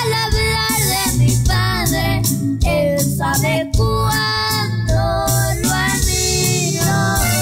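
A child singing a Mexican folk song to the strummed accompaniment of a twelve-string guitar, with a steady bass line underneath.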